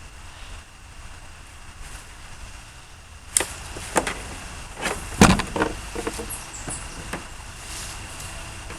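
Handling clatter of small hand tools: a run of sharp clicks and knocks starting about three seconds in, the loudest a little past five seconds in, over a steady low background hum.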